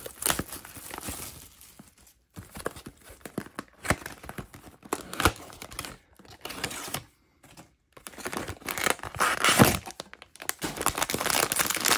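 Plastic wrap and cardboard flaps of a small blind box being torn and opened by hand in irregular rustles and knocks, then a foil mystery bag crinkling as it is pulled out near the end.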